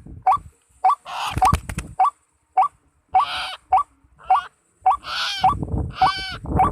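White-breasted waterhen calls: a short rising note repeated evenly about twice a second, with louder, harsher croaking calls breaking in among them.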